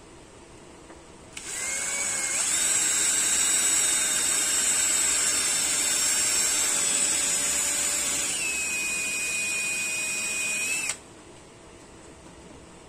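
Power drill running for about nine seconds. It speeds up to a higher whine a second after starting, holds steady, drops to a lower pitch about two-thirds of the way through, then stops suddenly.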